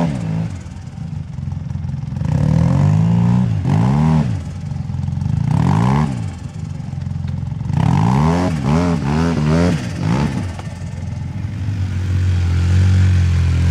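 A side-by-side UTV's engine revs up and down in repeated bursts as it crawls up a steep rocky slope, with several quick throttle blips about eight seconds in. Near the end it settles into a steadier, lower drone.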